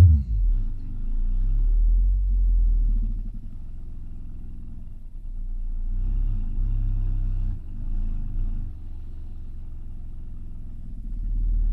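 Bass-heavy music played through the Bose Videowave II subwoofer's six miniature woofers in their waveguide enclosure: only deep bass notes come through, rising and falling in level. The bass is overloading the camera's microphone, giving audible distortion.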